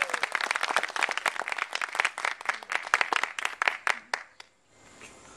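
A small audience clapping by hand, the separate claps easy to pick out. The applause dies away a little over four seconds in.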